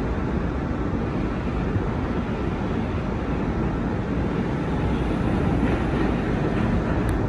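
Steady rumble and running noise inside a Kawasaki R211A subway car as the train travels, growing slightly louder toward the end.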